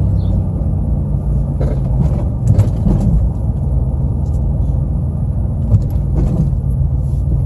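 Steady low rumble of a car driving, heard from inside the cabin, with a few light knocks and rattles.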